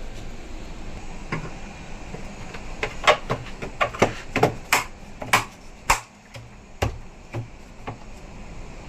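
A run of sharp knocks and taps, about a dozen irregular strikes over four seconds, from repair work on a top-load washing machine's gearbox.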